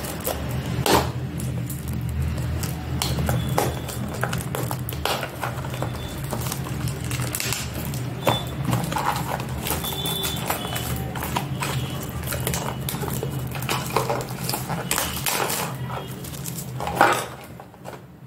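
Plastic shrink-wrap being peeled, torn and crinkled off a small cardboard toy box by hand, a run of irregular crackles and clicks with a couple of louder knocks as the box is handled, over a steady low hum.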